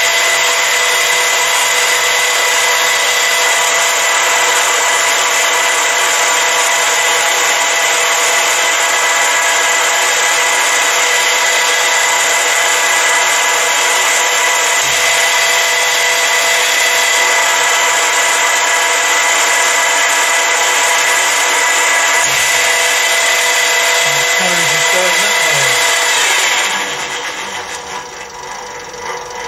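A 7x14 mini lathe with a brushless DC motor runs steadily with a whining gear-train hum at a spindle speed of around 900 rpm. It is switched off near the end and runs down to a stop.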